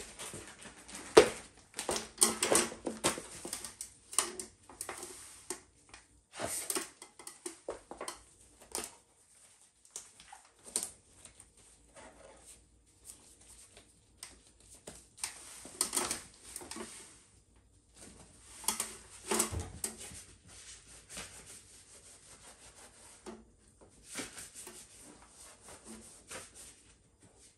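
Someone in nitrile gloves handling and shifting objects: irregular rustling, light clicks and knocks, with a sharp knock about a second in the loudest.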